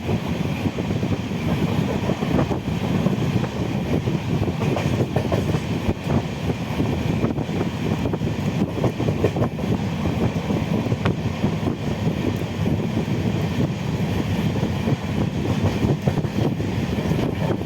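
Passenger train running at speed: a steady rumble of wheels on the rails with scattered clicks over the rail joints, mixed with wind noise.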